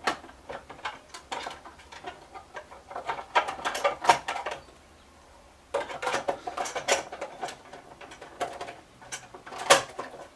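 Plastic housing of a Golight RadioRay spotlight being handled and fitted together: a run of irregular light clicks and knocks, with a short quiet pause about halfway through.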